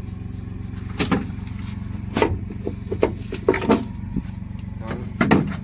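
A series of short, sharp knocks and clatters from tools and parts being handled while engine components are taken off, over a steady low hum. The busiest stretch of knocks is in the middle, and there is a last loud pair near the end.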